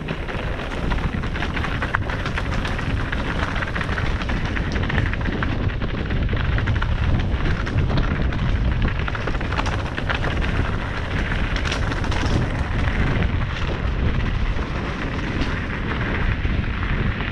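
Wind rushing over the action-camera microphone while a mountain bike rolls fast down a loose gravel and rock trail: tyres crunching on stones, with rattles and knocks from the bike over the rough ground.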